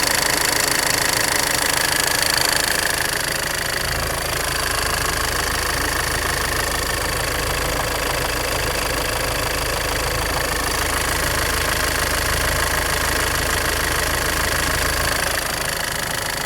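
Land Rover Freelander 2 engine running steadily with a fast, even clatter over the engine note: the extraneous noise the owner is trying to trace. The tone shifts and deepens about four seconds in.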